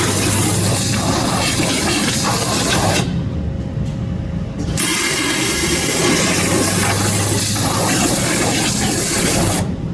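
Waterjet cutting machine's high-pressure jet hissing loudly while cutting 10 mm urethane. It shuts off for about a second and a half around three seconds in, comes back on, and shuts off again near the end, while a lower machine hum carries on underneath.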